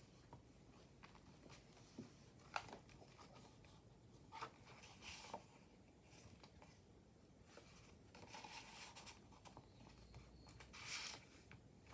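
Faint paper handling of a junk journal: soft rustles of pages being turned and touched, with a sharp little tap about two and a half seconds in and a louder rustle near the end.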